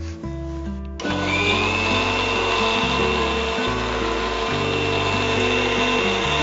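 Preethi electric mixer grinder switched on about a second in, then running steadily with a high motor whine as it grinds a wet spice masala paste.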